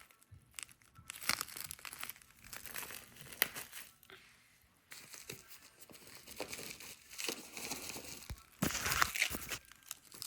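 Packaging crinkling and rustling in irregular handling bursts, with a brief lull about halfway through and the loudest crinkling near the end, as it is unwrapped.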